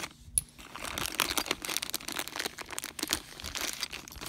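Clear plastic bag crinkling as it is handled, with the old vacuum tubes and a projector lamp inside it. There is a sharp click about half a second in.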